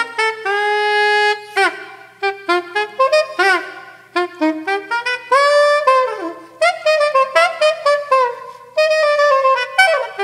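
Unaccompanied saxophone playing a jazz line: quick runs of short, detached notes broken by a few longer held notes, some sliding in pitch.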